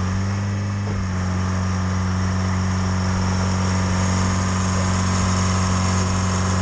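Diesel engine of a Speed Swing rail loader running at a steady pitch as the machine backs up on the track.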